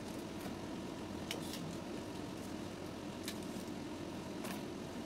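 Plastic wrapping rustling and crinkling as it is stripped from a selfie ring light's flexible gooseneck arms: a few short, separate crinkles over a steady low room hum.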